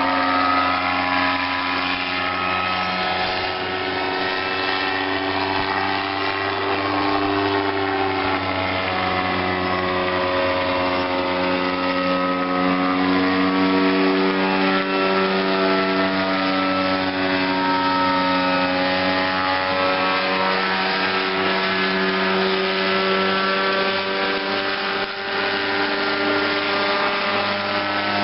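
Gyroplane's engine and propeller running steadily in flight, a continuous pitched drone that slowly wavers up and down in pitch.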